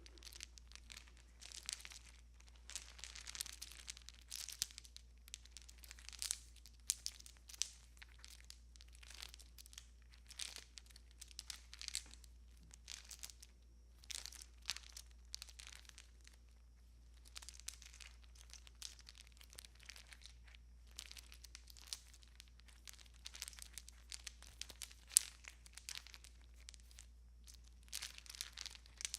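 A string of Christmas tree lights being handled and strung, its wire and bulbs rustling and crinkling in irregular bursts with small sharp clicks and short pauses.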